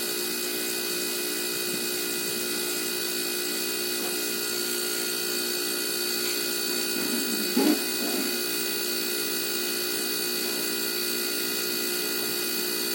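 Air-conditioner compressor, rigged as a DIY air compressor, running steadily with an even, tonal hum as it pumps up a recycled freon tank past 60 PSI. A brief louder sound cuts in once, about seven and a half seconds in.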